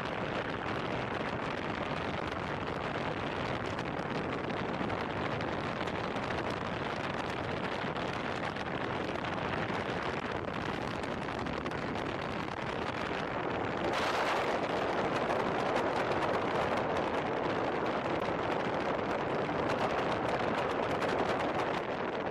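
Wind rushing over the microphone of a camera mounted outside a moving car, mixed with tyre and road noise. About two-thirds of the way through the rush grows louder and brighter.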